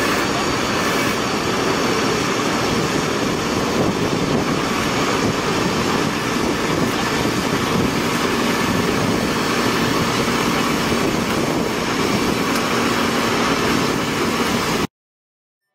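Truck-mounted tree spade's engine and hydraulics running steadily as its blades dig in around a palm; the sound cuts off suddenly near the end.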